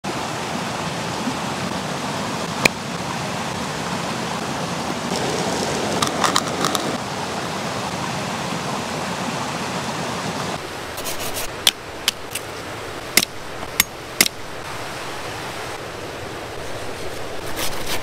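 Mountain stream rushing steadily over rocks, its rush growing quieter about halfway through. Over it come close handling sounds: a sharp tap a few seconds in, a crinkly patch a little later, and a run of sharp clicks and taps in the second half.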